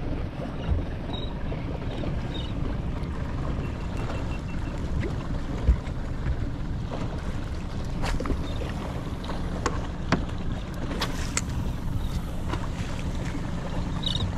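Wind and water noise on a small boat at sea, with a faint low hum that grows plainer about ten seconds in and a few scattered light knocks and clicks.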